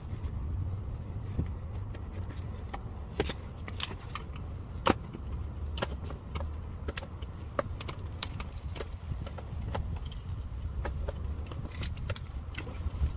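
Scattered light clicks and taps from a gloved hand and tools working at the underside of a car, over a steady low rumble. One sharper click comes about 5 seconds in.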